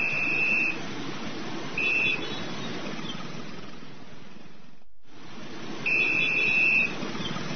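Steady hiss with high electronic beeps: a beep about a second long at the start, a short one about two seconds in, and another about a second long near six seconds; the hiss cuts out for a moment just before five seconds.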